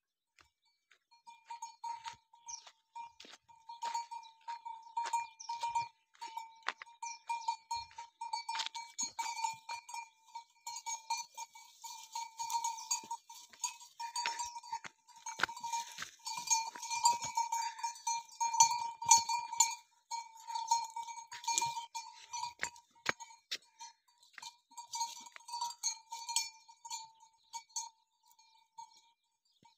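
A livestock neck bell clanking in quick, irregular strokes, as if swinging on a moving animal, with scattered clicks and crackles mixed in.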